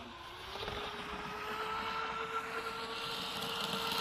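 Electric RC jet boat (V2 Streamline Thrasher on a 6S LiPo) running fast across the water: a steady motor-and-pump whine, edging slightly up in pitch, over the hiss of spray. It grows louder as the boat approaches.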